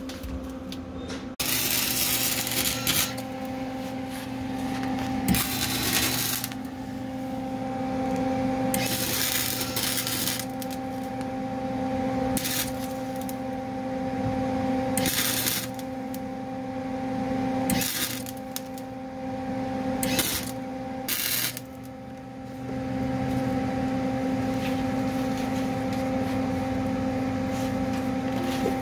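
Wire-feed welder laying short tack and stitch welds on a car's steel frame rail. The arc crackles and hisses in bursts of about one to two seconds, several times over, against a steady electrical hum.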